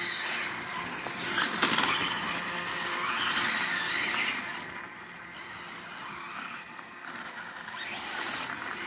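Reely radio-controlled dirt bike's electric motor whining, rising and falling in pitch several times as it speeds up and slows down.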